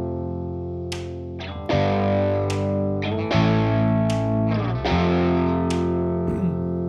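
Instrumental backing track playing back: sustained distorted electric-guitar chords over a low bass, changing chord about every second and a half, with a sharp drum hit roughly midway between changes.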